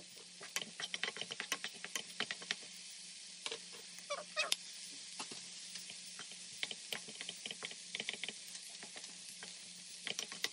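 Vegetables and rice sizzling in a nonstick frying pan, a steady hiss under many quick clicks and taps as a wooden spatula stirs and scrapes against the pan.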